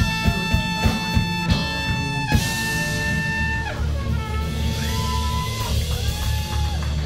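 Live soul-pop band with acoustic guitar, bass, drum kit and trumpet. A steady drum beat stops about two seconds in on a final hit, and the band then holds long notes over a sustained bass line, with some notes sliding in pitch.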